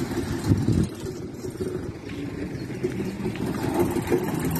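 Light tanker truck's diesel engine running through a custom modified exhaust pipe as the truck drives slowly past, a low pulsing rumble. It surges louder just under a second in, eases off, then builds again.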